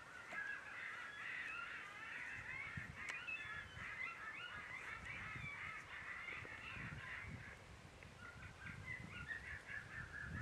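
A distant chorus of many birds calling over one another, with irregular gusts of wind thumping on the microphone from about two seconds in.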